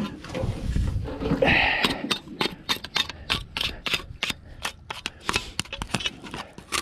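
A plastic scraper rasping over the painted steel fluke of a Danforth anchor to clear off crust and small barnacles. It makes a fast, even run of short scraping strokes, about five a second, starting about two seconds in.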